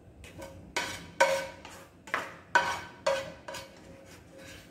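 A cooking utensil scraping and knocking against a nonstick frying pan while the last of the food is scooped out, about nine sharp clinks, each with a short ring.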